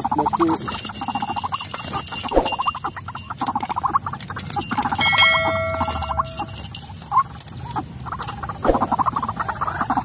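White-breasted waterhen calling: harsh, rapidly pulsed croaking calls repeated again and again, over a steady high-pitched whine. A brief ringing tone sounds about five seconds in.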